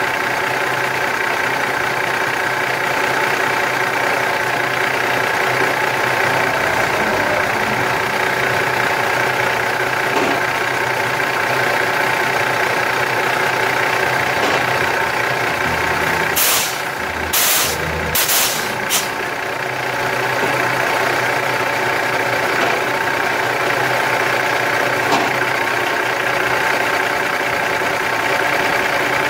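Volvo truck's diesel engine idling steadily. Just past the middle come a few short, sharp hisses of released air.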